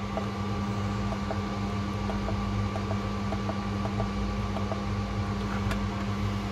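Steady low hum, with a faint higher tone above it, and a scattered run of faint short blips as the keys of a Foxwell BT-780 battery analyzer are pressed.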